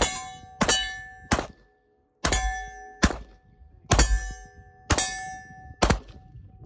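9mm pistol (FMK 9C1 Gen 2) firing at steel plate targets: sharp shots, each followed by the ringing clang of a struck steel plate. There are about eight, roughly one a second, with a short silent gap about two seconds in.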